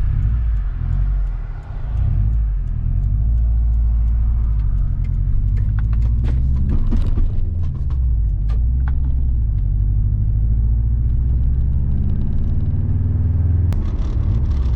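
2008 Subaru Forester XT being driven: a steady low rumble of engine and road noise, with a few light clicks and knocks in the middle and near the end.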